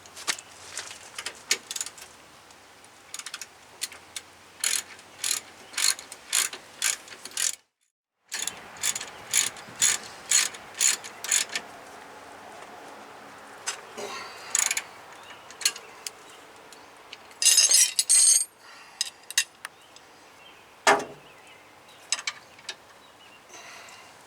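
Hand ratchet clicking in short, even strokes at about two a second while the rear brake caliper bolts are run in, with a louder rasp of quick ratcheting near the end and a single knock of metal on metal.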